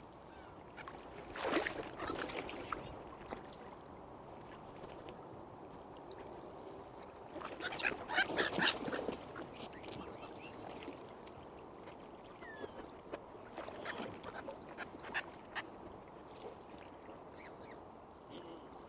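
Waterfowl calling in two louder bouts of repeated calls, about a second and a half in and around eight seconds, with scattered shorter calls later, over a steady low background noise.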